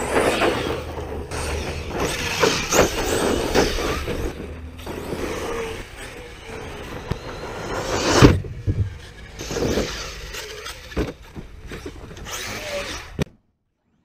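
Arrma Notorious 6S brushless RC stunt truck driven hard over rough dirt: the motor whine rises and falls under the throttle, with tyre scrabble and sharp knocks as it lands and tumbles, the loudest hit about eight seconds in. The sound cuts off abruptly near the end.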